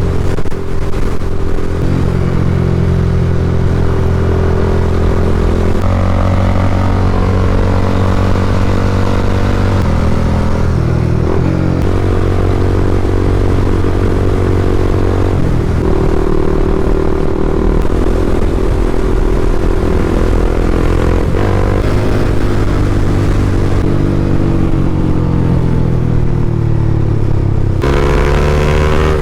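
Honda CBR300R's single-cylinder four-stroke engine running under way, its pitch stepping up and down with throttle and gear changes and rising steadily near the end.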